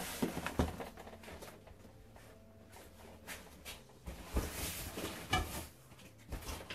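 Cardboard delivery boxes being handled and moved about: scattered knocks, scrapes and rustling, with a louder cluster of bumps between about four and five and a half seconds in.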